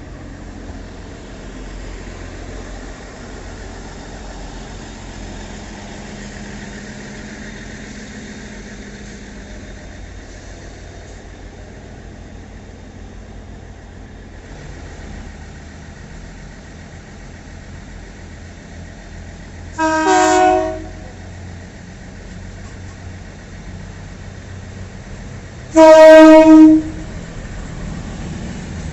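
A train horn sounds twice over a steady low rumble: a short blast about two-thirds of the way through, then a louder, roughly one-second blast near the end.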